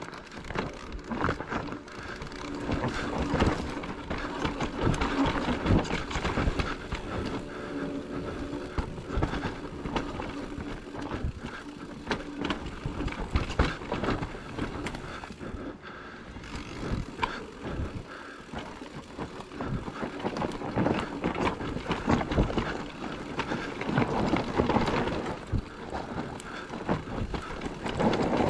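Trek Rail electric mountain bike descending a rough dirt trail: tyres rolling and skidding over dirt and roots, with the frame, suspension and chain knocking and rattling over the bumps.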